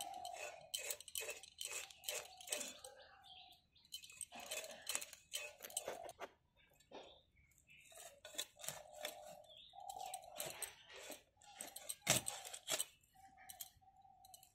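Bhetki (barramundi) being cut by hand on a boti blade: a run of sharp clicks and scrapes as the fish is pushed through the blade, the loudest about 12 seconds in.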